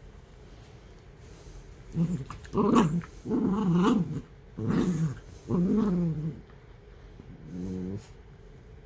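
Miniature dachshunds growling while play-fighting: quiet for about two seconds, then a string of growls over the next four seconds, with one short growl near the end.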